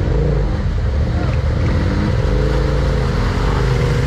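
ATV engine running hard in deep mud, its revs rising and falling unevenly over a heavy low rumble.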